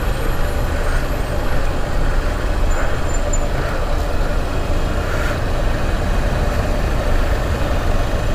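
Motorcycle riding noise from the rider's own camera: steady wind rush and road noise over the running of a 2009 Honda Shine's 125 cc single-cylinder engine.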